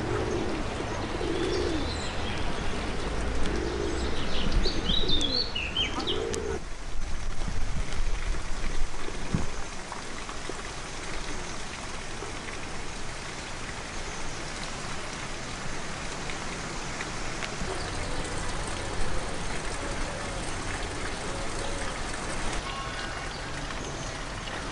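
Pigeons cooing in low, repeated rolling calls over the first six seconds, with a few small-bird chirps. After that comes a steady even hiss, with fainter coos now and then.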